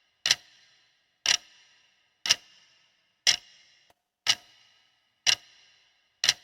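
Countdown timer's clock-tick sound effect: one sharp tick each second, seven in all, each with a short ringing tail, counting down the time allowed to answer.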